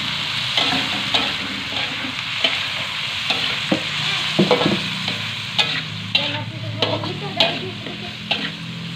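Raw shrimp sizzling as they stir-fry in hot oil and chili-shallot paste in a wok. A spatula stirs them, scraping and knocking against the wok again and again over a steady hiss of frying.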